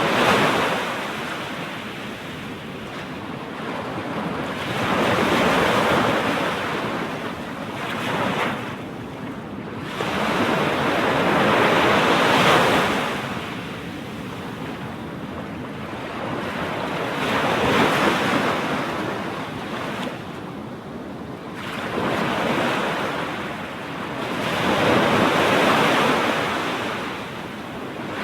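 Surf breaking onto the beach and washing back, in a slow rhythm of swells, each wave building for a few seconds and fading, about six in all, with some wind on the microphone.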